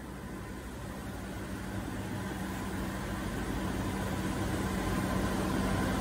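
Steady low machinery hum with a constant tone, growing gradually louder.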